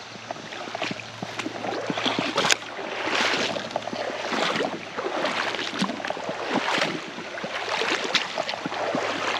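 Shallow creek water sloshing and rushing, in swells about every second and a half, with scattered small clicks and knocks.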